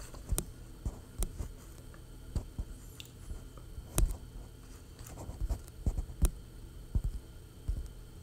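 Irregular light taps and knocks of handling noise on the microphone, the loudest about four and about six seconds in, over a steady low hum.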